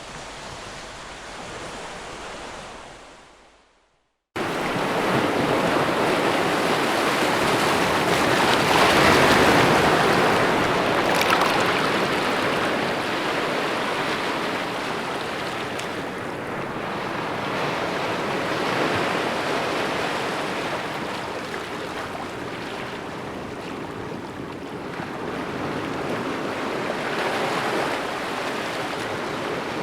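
Ocean surf: waves breaking and washing in slow swells that rise and fall. For the first few seconds a quieter, hissing wash fades out to a moment of silence, then much louder surf starts suddenly.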